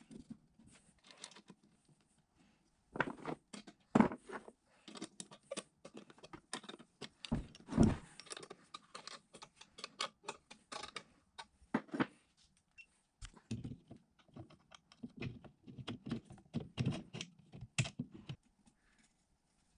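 Irregular metallic clicks, clinks and knocks of bolts, nuts and a hand wrench as an electric motor is bolted to its steel mounting plate, with a couple of louder knocks about four and eight seconds in.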